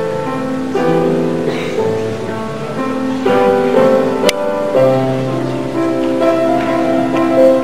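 Grand piano played live: a slow melody over held chords. A brief click about four seconds in.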